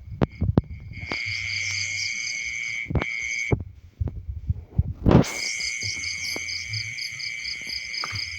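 Insect trill, high-pitched and pulsing about four or five times a second; it starts about a second in, breaks off for a second and a half around the middle, then resumes. Low knocks and thumps come and go throughout, the loudest just after the trill stops.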